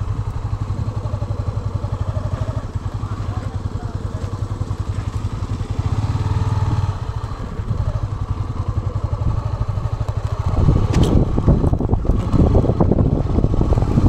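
Motorcycle engine running at low speed with a steady, rapid pulse, getting louder about ten seconds in.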